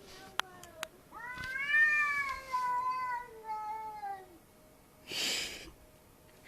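A cat yowling: one long, drawn-out wail of about three seconds that wavers and then falls in pitch. It is preceded by two sharp clicks, and a short burst of hissing noise follows near the end.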